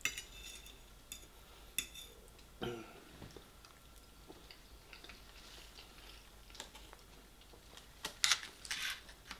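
Eating sounds: chewing, with a few light clicks of a metal fork against a plate, and a louder run of fork scraping about eight seconds in as the fork goes into a foil takeaway tray.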